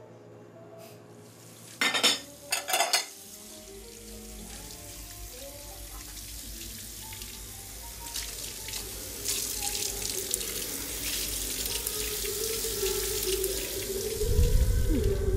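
Water running from a tap into a sink while a sponge scrubs a kitchen knife, the rush of water growing louder about halfway through. A few sharp clinks come about two seconds in, and a film score plays with held tones, a deep low sound swelling in near the end.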